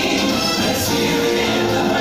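Stage-show music with a choir singing held notes over the backing track.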